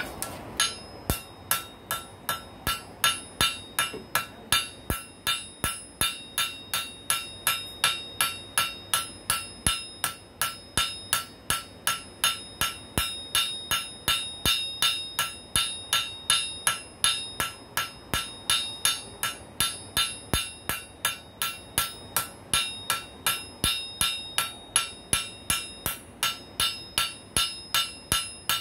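Blacksmith's hand hammer striking hot steel on an anvil in a steady rhythm, about two and a half blows a second, each blow with a bright anvil ring. The hammering starts about a second in.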